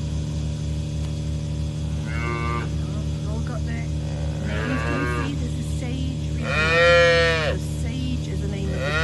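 Young dairy calves bawling: four drawn-out calls, each rising and then falling in pitch, the third the loudest and the last still going at the end. The calves are waiting for their bottle feed of milk. A steady low hum runs underneath.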